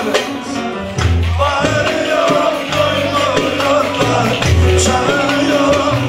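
Live Turkish folk music played on an amplified bağlama, with a wavering melody and low bass notes, between sung verses.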